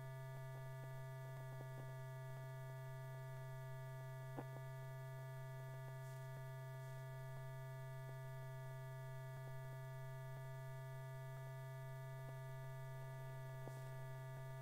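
Steady low electrical mains hum with several higher overtones and faint crackle, with a single faint click about four seconds in.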